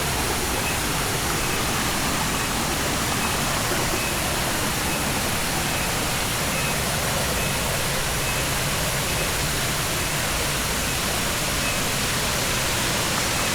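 Waterfall water rushing in a steady, unbroken roar of falling water.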